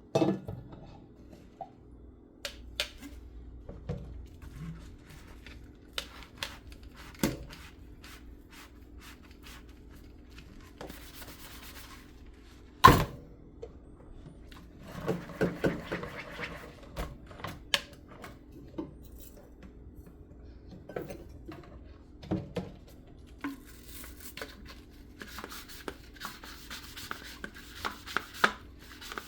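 Hand-washing dishes at a sink: scattered clinks and knocks of dishes being handled, a loud clunk about 13 seconds in, and stretches of sponge scrubbing, over a faint steady hum.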